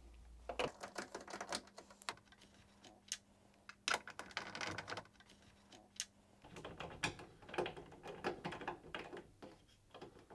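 A 7mm socket driver unscrewing the screws that hold a tumble dryer's metal top panel, heard as three short runs of quick clicking and rattling.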